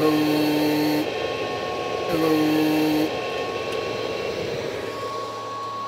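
Power supply and four-pill CB amplifier humming steadily under load twice, for about a second each time the radio is keyed, the sign of the 50 amp supply struggling to feed the amplifier. A spoken "hello" comes with each keying, and a cooling fan whirs throughout with a thin steady whine.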